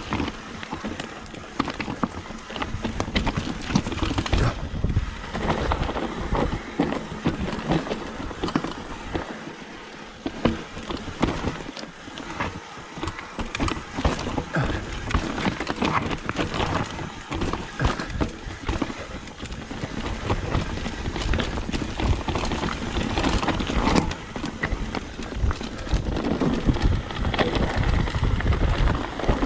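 Mountain bike descending a rough trail: tyres crunching over stones and the bike rattling with constant quick knocks, over the rush of wind on the microphone.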